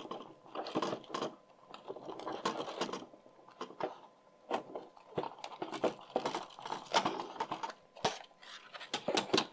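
Handling noise from fitting a wire nose-wheel landing gear into an EPP foam model plane's fuselage: irregular rubbing and rustling of foam and plastic, with many small clicks.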